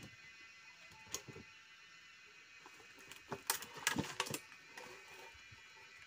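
Split wooden logs knocking against each other as they are shifted and restacked by hand: a single knock about a second in, then a quick cluster of knocks in the middle and a few softer ones after, over a faint steady hiss.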